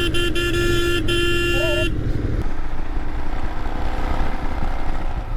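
A vehicle horn honking in rapid short beeps, then held for about a second, cutting off about two seconds in, over the steady low rumble of a vehicle's engine and tyres on the road.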